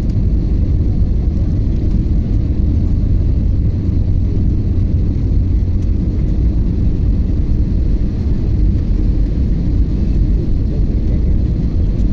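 Steady low rumble of jet-airliner cabin noise, engines and airflow heard from a window seat, as the plane descends toward landing.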